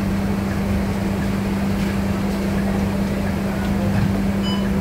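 Scania K230UB bus's diesel engine running steadily, with a constant low hum and rumble.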